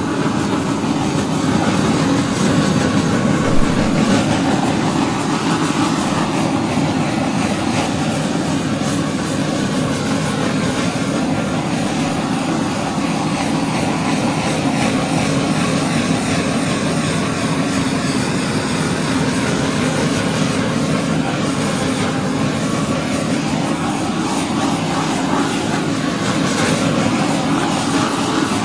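Handheld gas torch flame blowing steadily over wet acrylic pour paint, a continuous rushing hiss, used to pop air bubbles and bring up cells in the paint.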